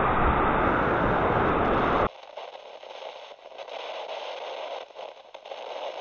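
Steady rush of water pouring over a dam spillway, cut off abruptly about two seconds in, followed by a faint crackling hiss.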